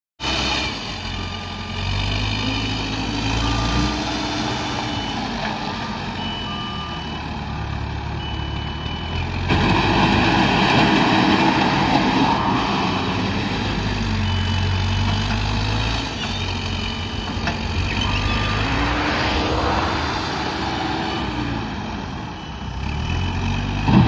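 Caterpillar 428E backhoe loader's diesel engine running and revving up and down as it works gravel, louder from about ten seconds in. Its reversing alarm beeps on and off at about one beep a second.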